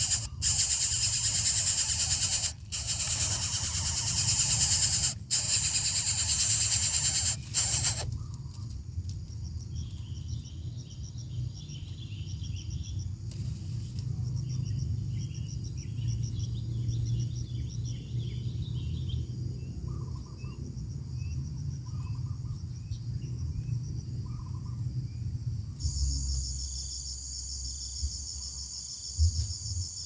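Greater coucal nestlings hissing: long loud hisses with short breaks, stopping after about eight seconds. After that come faint chirps of other birds and a steady high pulsing insect buzz.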